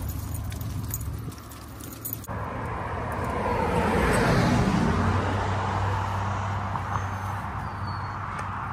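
A cargo van drives past on the road, its tyre and engine noise swelling to a peak about four seconds in and then fading. Before it, the light jingle of dog tags and leash clips from a pack of walking dogs.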